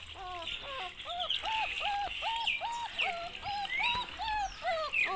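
An animal's short calls, repeated quickly at about three a second, each rising, holding and falling in pitch.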